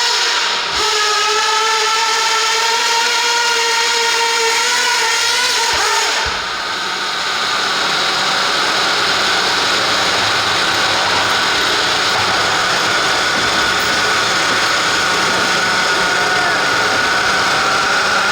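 Radio-controlled pulling vehicle's motor and drivetrain whining under load during a pull: a high, steady whine that rises slightly in pitch. It breaks off about six seconds in and is followed by a rougher, noisier motor sound with a faint high whine.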